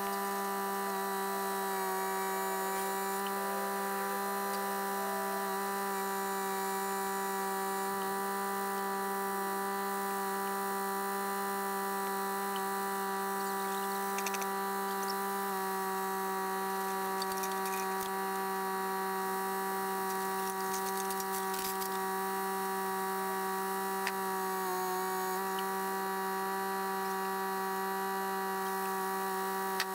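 Compact tractor running at a steady speed, heard as an even pitched hum with overtones. The hum shifts slightly about halfway through and dips briefly near the end.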